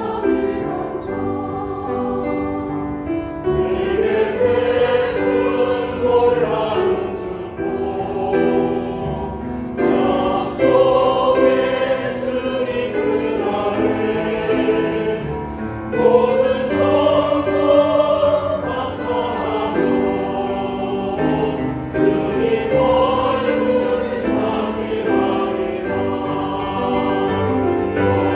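Church choir singing a sacred anthem in Korean with piano accompaniment, the voices swelling and easing from phrase to phrase.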